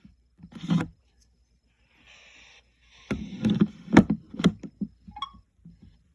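Clicks, knocks and rustling from handling a small plastic talking alarm clock while setting it, with a dense run of knocks about three seconds in and a brief squeak near the end.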